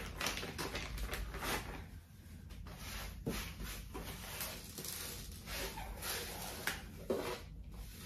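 Irregular rustling and rubbing strokes: a plastic packet of wipes handled and a hard appliance surface wiped down by hand.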